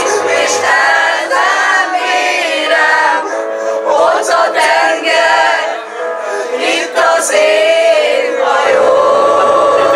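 A group of young women and men singing a song together into microphones, several voices in chorus.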